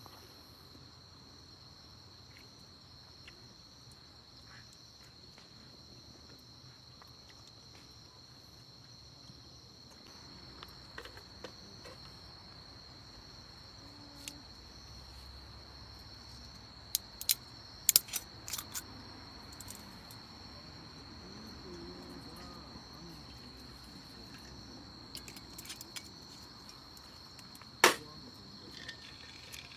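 Steady high-pitched chirring of insects, with scattered sharp clicks, a cluster of them a little past halfway and one louder knock near the end.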